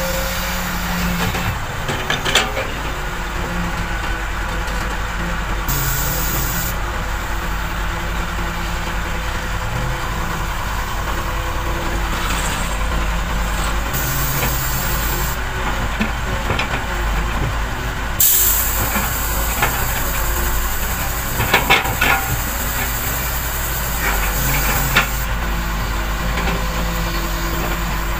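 Heavy diesel machinery, an excavator and dump truck, running continuously with the engine note rising and falling. Several stretches of high hiss and a few sharp knocks or clanks come through the engine sound.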